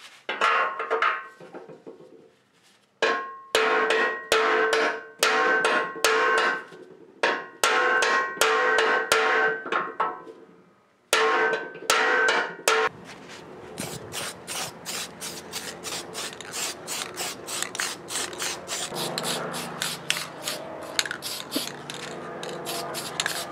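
Hammer blows on the pressed-steel flange of a Ford Model T crankcase, each strike ringing, in irregular groups with short pauses. The blows are flattening a raised, damaged area around the bolt holes. After about thirteen seconds the blows give way to a fast, steady run of ticks at about four a second.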